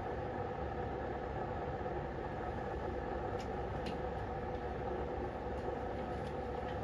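A steady mechanical hum with a few light clicks.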